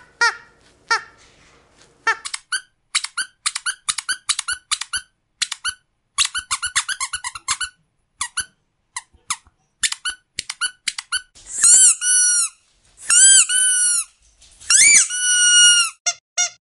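Rubber squeaky dog toy squeezed over and over: quick runs of short squeaks, then, in the second half, a few longer squeaks that rise and fall in pitch.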